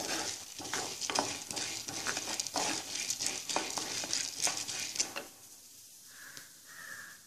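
Wooden spatula stirring chana dal as it roasts in a little oil in a clay pot: repeated scraping strokes over a light sizzle, stopping about five seconds in.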